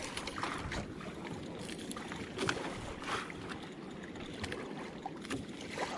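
Water slapping and splashing against the hull of a small boat in choppy sea, with a few sharper slaps standing out over a steady wash of wind and water.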